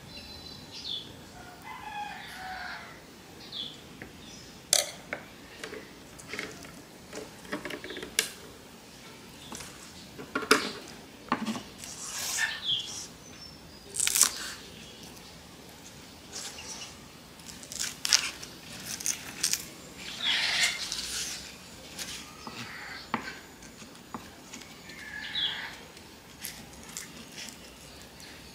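Chef's knife slicing tomato and then cutting green onions on a wooden cutting board, the blade knocking sharply against the board at irregular intervals. Birds call faintly in the background.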